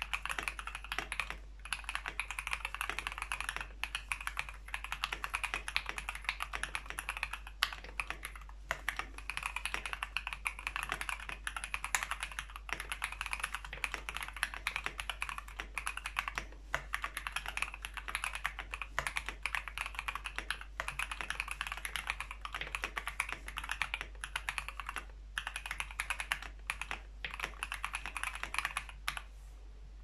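Fast, continuous typing on a Tofu65 mechanical keyboard with a brass plate and stock factory-lubed Alpaca v2 linear switches, dampened with foam and Sorbothane. Many clacky keystrokes a second, with brief pauses every few seconds.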